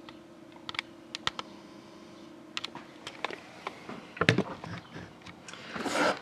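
Irregular light clicks and taps, with a heavier knock about four seconds in and a short rustle near the end.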